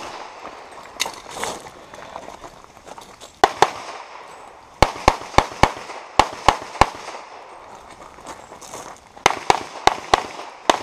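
Handgun fired in quick strings of two to four shots, each a sharp crack with a short echo, separated by pauses of a second or more.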